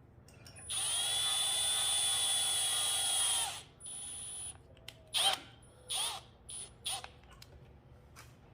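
Cordless drill motor whining steadily for about three seconds, then running in a few short trigger bursts, driving a brass cup hook chucked in its jaws into a wooden board.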